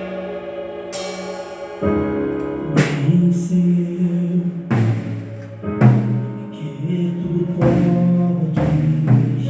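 Gospel worship music: sustained keyboard chords with a drum kit, whose cymbal crashes and drum hits land about every one to two seconds.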